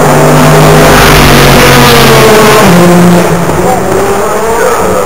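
Race car engines running at speed on the circuit, loud and close, several engine notes at once with some gliding in pitch. The sound eases off a little after three seconds in.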